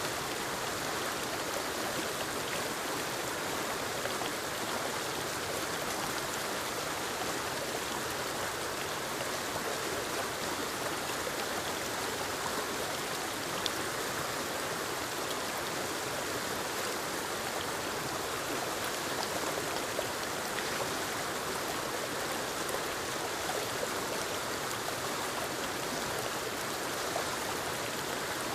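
Forest waterfall and creek water rushing steadily, an even, unbroken sound of falling and flowing water.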